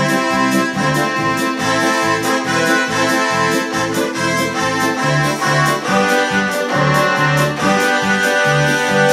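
Ketron arranger keyboard playing a krakowiak tune in an accordion voice over its own accompaniment, with a repeating bass line pulsing underneath.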